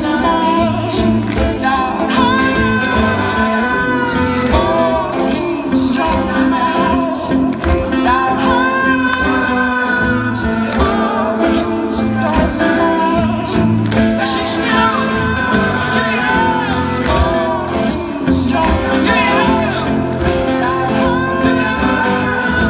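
Live music: singing with instrumental accompaniment, the voices holding long wavering notes without clear words.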